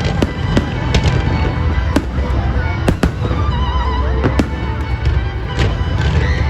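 Fireworks bursting in a quick, irregular series of sharp bangs, about two a second, over loud music.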